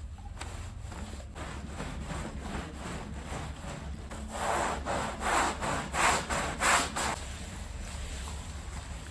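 Brush scrubbing a rug in back-and-forth strokes: faint strokes at first, then about five loud, harsh strokes in the middle, over a steady low hum.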